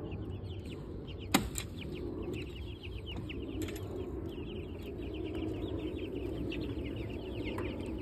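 A brood of young meat-bird chicks peeping without pause, many short downward-sliding cheeps overlapping. One sharp click comes about a second and a half in.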